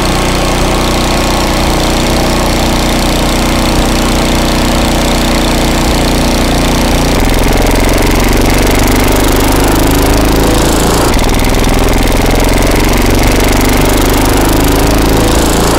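Small gasoline engine running a forage chopper while its drive belts are gradually tensioned to bring the chopper rotor up to speed. The engine note shifts about seven seconds in, and a tone rises slowly through the second half.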